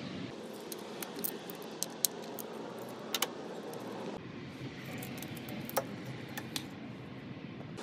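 Scattered sharp clicks and light metallic clinks of tools and parts being handled on an engine's top end, over a steady background hiss.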